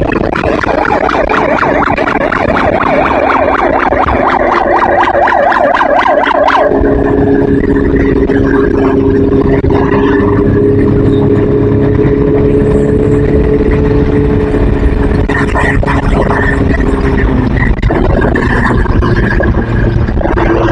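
A vehicle siren warbling rapidly for about six and a half seconds. It then gives way to a steady, sustained drone over a running engine until near the end.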